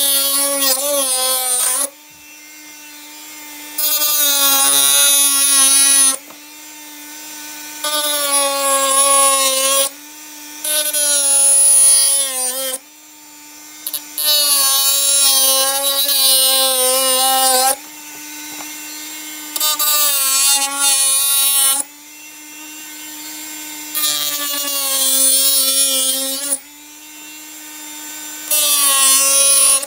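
Flexible-shaft rotary tool with a small cutting wheel running with a steady whine, with a loud rasping grind each time the wheel is pushed into the edge of a vacuum-formed plastic part. There are about seven cutting passes of a second or two each as the corners are trimmed.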